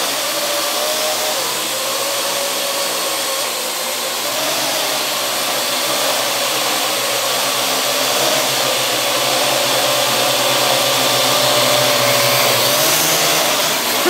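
Parrot AR.Drone quadcopter's four electric rotors whirring steadily as it hovers and flies close by, the pitch wavering a little as the motors adjust and rising slightly near the end.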